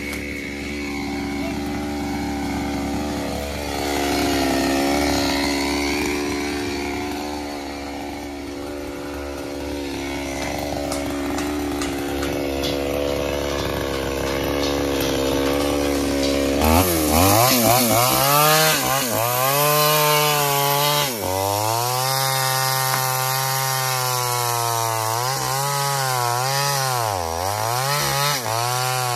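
Stihl MS 440 two-stroke chainsaw idling, then, after a sudden change a little past halfway, running at high revs and cutting through the felled ylang trunk. Its pitch dips and recovers several times as the chain bogs in the wood.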